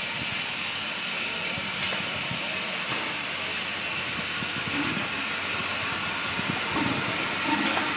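Steady hiss of steam from the live Santa Fe 2926, a 4-8-4 Northern-type steam locomotive, with a thin high tone held through it.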